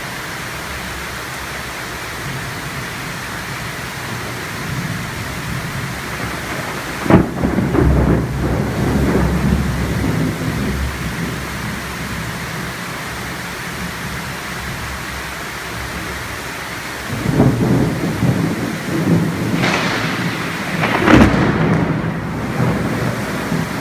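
Thunderstorm: steady heavy rain, with thunder. A sharp clap about a third of the way in rolls on as rumbling for a few seconds, and more thunder rumbles in about three-quarters through, with a loud crack near the end.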